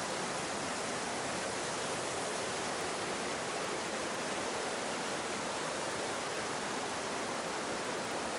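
Mountain stream and waterfalls rushing through a rock gorge, a steady, even rush of water with no change.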